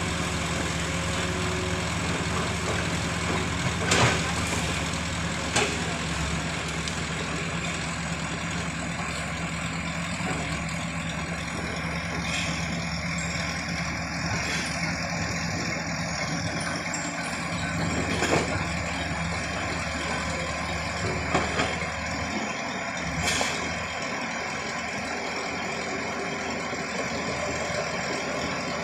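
Heavy engine running steadily at low revs, with a few sharp clanks here and there.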